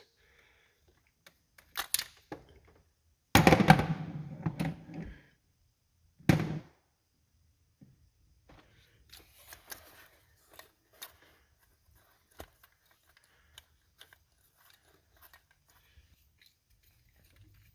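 Ratchet on the tight 12 mm knock-sensor bolt of a Nissan VQ35DE engine: a few sharp clicks, then a loud clunk a few seconds in as the bolt cracks loose, another knock shortly after, then faint, irregular clicking as the bolt is worked out.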